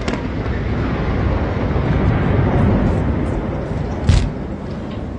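Low, steady rumble from a drone-strike explosion across the water, with a single sharp crack about four seconds in.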